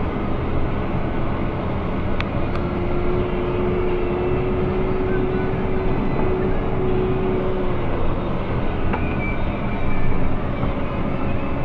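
JCB Fastrac 3230 Xtra tractor's diesel engine running under way, heard from inside the cab. A steady whine rides over the engine noise from a couple of seconds in until about eight seconds in, and two faint clicks come early on.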